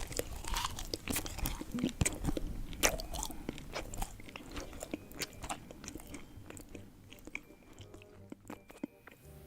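Close-miked crunchy chewing and biting, thick with sharp crunches at first and thinning out over the last few seconds, with soft background music.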